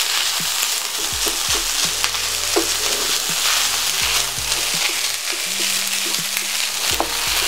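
Boiled rice and caramelized onions sizzling steadily in a pan on low heat while a wooden spatula stirs them, with short scrapes and knocks of the spatula against the pan every second or so.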